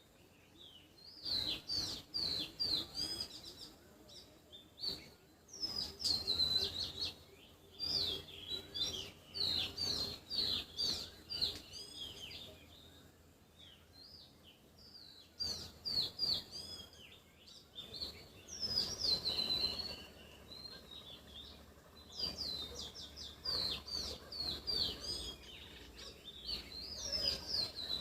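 Wild birds singing: rapid series of short, high chirps, each sliding down in pitch, in bursts of a few seconds with brief pauses between.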